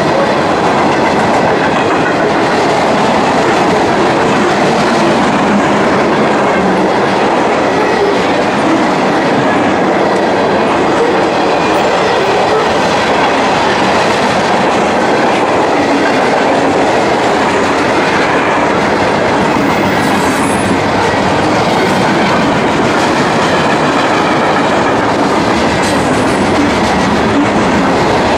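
Mixed freight cars of a CSX manifest train (boxcars, tank cars, centerbeam lumber flats) rolling past on the nearest track: a loud, steady rumble of steel wheels on rail that does not let up.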